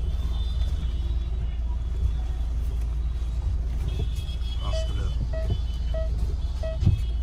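Car's reverse parking-sensor beeps, short evenly spaced tones about one every two-thirds of a second, starting partway through, over the steady low rumble of the car heard from inside the cabin. A single dull thump near the end.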